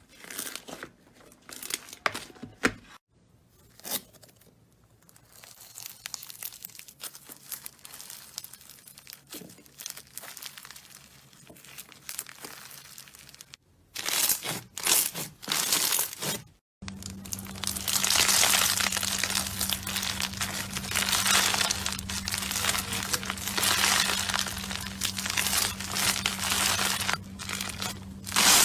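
Slime being squeezed and played with by hand, giving crinkly, crackling tearing sounds across several short clips. The last and loudest stretch is dense, continuous crackling over a steady low hum.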